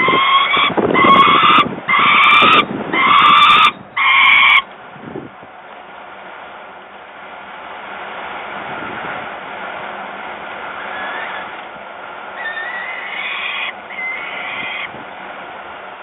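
Peregrine falcon chicks giving harsh, wailing begging calls: five loud calls in quick succession, then two more about two-thirds of the way through. Strong wind rumbles and hisses on the microphone in between.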